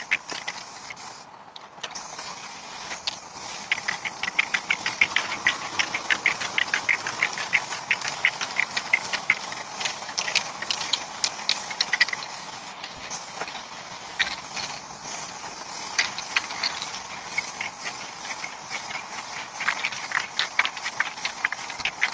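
Aerosol spray-paint cans being shaken, their mixing balls rattling in rapid runs of clicks, over a steady spraying hiss. The rattling pauses a few times and starts again.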